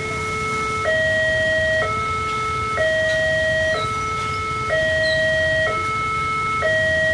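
Railway level-crossing warning alarm sounding while the crossing is closed for an approaching train: an electronic two-tone hi-lo signal alternating evenly, each note held for a little under a second.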